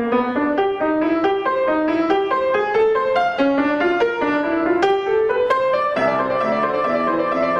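Grand piano played solo, a quick run of notes moving up and down in the middle register; lower bass notes join about six seconds in.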